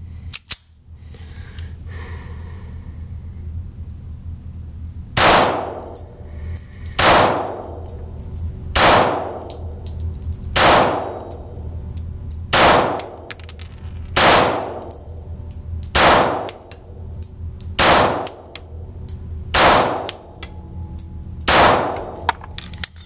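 Ruger MkIV 22/45 Lite .22 LR pistol fired ten times at an even, unhurried pace, a shot just under every two seconds, each crack ringing out in an indoor range.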